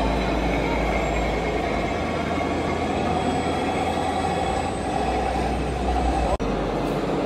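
Radio-controlled model trucks running with sound modules that play a diesel truck engine, a steady low rumble. The sound drops out for an instant about six seconds in.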